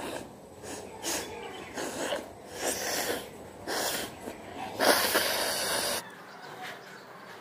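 A woman blowing her nose hard, several short forceful blows about a second apart, then one long, loudest blow that cuts off suddenly about six seconds in.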